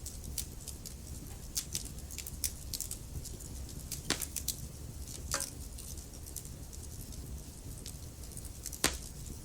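Wood fire burning in a fireplace: a steady low rumble of flames with irregular crackles and snaps, the sharpest pops about four and nine seconds in.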